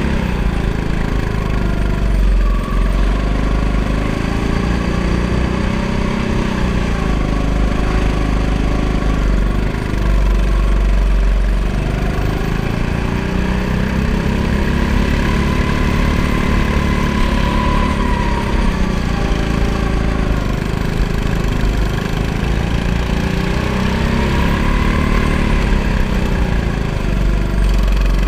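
Go-kart engine running hard, heard from on board the kart, its pitch rising and falling several times as the kart accelerates and slows through the corners.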